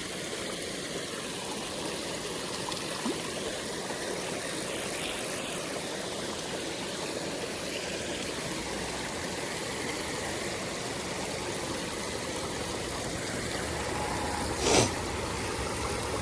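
Stream water running steadily, with one short, louder burst near the end.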